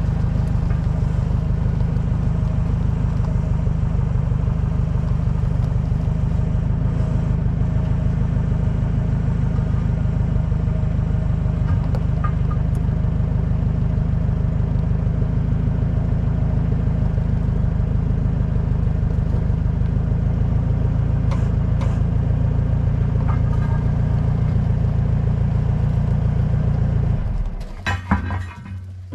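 A heavy machine's engine running steadily with a deep rumble, then shut off about two seconds before the end, followed by a few metallic knocks.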